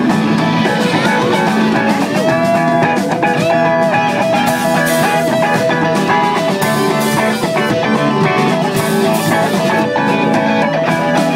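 A live rock band playing loudly through a PA, an electric guitar holding and bending notes over a steady drum beat.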